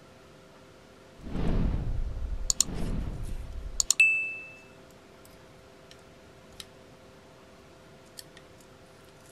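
Subscribe-button animation sound effect: two low whooshes with a few sharp mouse-style clicks, ending about four seconds in with a click and a short high ding. Later, two faint metal clicks from the folding utensil's fork being opened.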